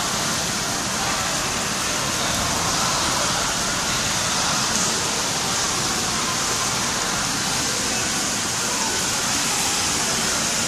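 Torrential downpour: a steady, dense hiss of heavy rain that does not let up.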